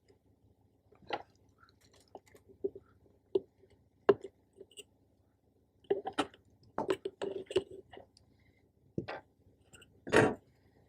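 Scattered clicks, taps and rustles of diesel heater hardware (intake hose, clamps and fittings) being handled during assembly, busiest a few seconds past the middle, with a louder scrape about ten seconds in.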